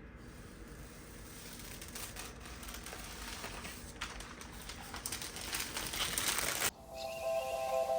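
Crinkling and rustling, growing louder, that cuts off abruptly near the end, where background music with steady held notes begins.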